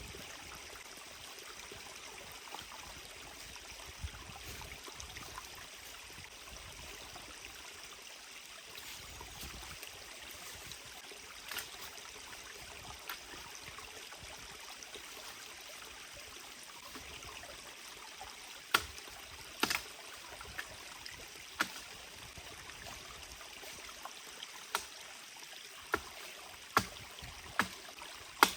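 A mountain stream flowing steadily. Over the last third it is joined by a series of sharp, irregularly spaced knocks.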